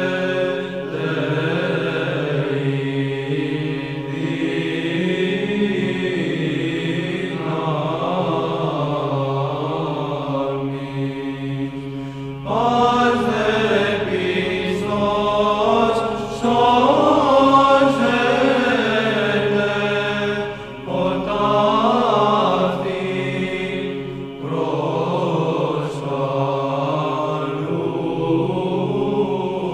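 Orthodox Byzantine-style chant: voices singing a slow melody over a steady, held low drone note. The singing grows louder about twelve seconds in.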